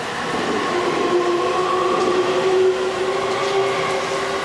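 JR East E657 series limited-express train running past the platform: wheel and rail noise with a steady whine that swells toward the middle and eases off near the end.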